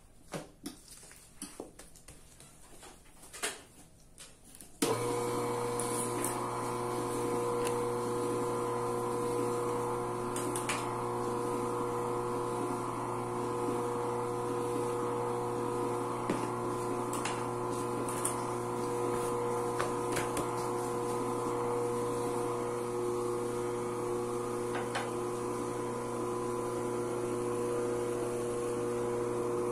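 A few light clicks and knocks, then about five seconds in an electric dough sheeter's motor switches on and runs with a steady, even hum.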